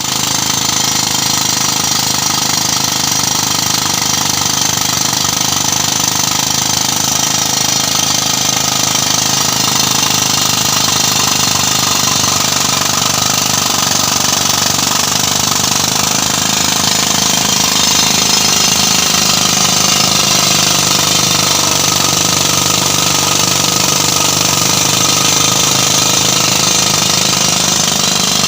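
Drill machine running continuously at a steady, loud level, with a slight wavering in pitch in the second half.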